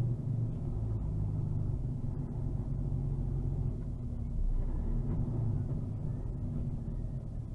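Steady low rumble of a vehicle's engine and road noise heard from inside the cab while it drives slowly, with a faint engine hum.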